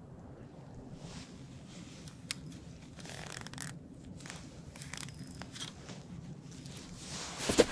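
Spinning rod and reel being fished after a cast, with the reel turning and soft clicks and rustles of handling over a steady low background rumble. A short loud bump comes near the end.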